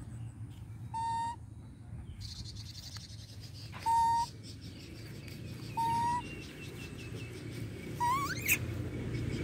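Baby long-tailed macaques calling: three short, clear, steady coos a couple of seconds apart, then a sharper squeal that rises in pitch near the end.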